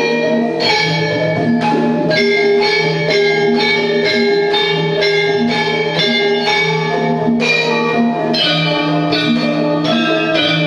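Javanese gamelan ensemble playing: bronze metallophones and gong-chimes struck in an even, steady pulse over a sustained low gong tone, with kendang jaipong hand-drumming driving the rhythm.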